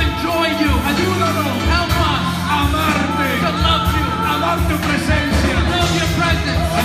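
Live worship music: keyboard playing sustained chords and bass notes, with voices singing over it through microphones.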